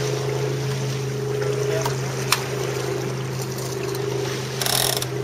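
Wind and water rushing past the hull of a Melges 24 sailboat under sail, over a steady low hum. A single sharp click comes a little past two seconds in, and a brief rustle comes near the end.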